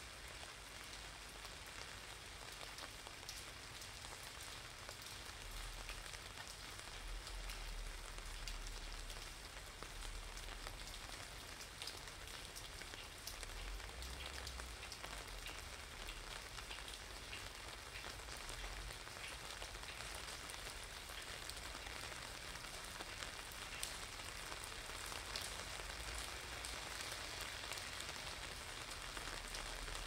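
Steady rain pattering on wet pavement and on an umbrella overhead, with many single drops ticking close by. A low rumble comes and goes underneath.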